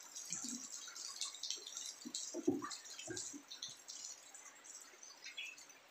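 Faint, irregular water dripping, with a few soft knocks as a cardboard parcel is handled and set on a small tricycle.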